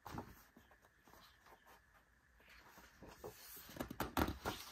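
Paper pages of a large photobook being handled and turned by hand: faint rustling, then a louder cluster of brushing and flapping strokes in the last second and a half as a page is lifted and flipped over.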